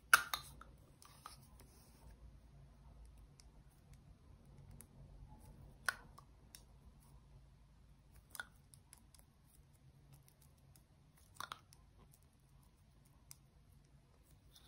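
Gold lipstick case handled: a sharp click near the start, then a few light single clicks spaced seconds apart as the case's base is twisted to wind up the white lipstick.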